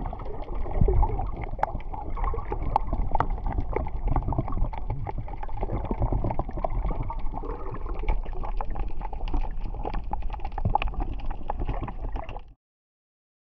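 Underwater water noise picked up by an action camera: a muffled wash with many small crackles and bubbling clicks, cutting off suddenly near the end.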